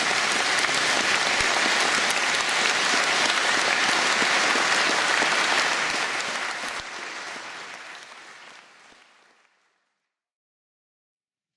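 Audience applauding, a dense steady clapping that fades out from about six seconds in until it is gone.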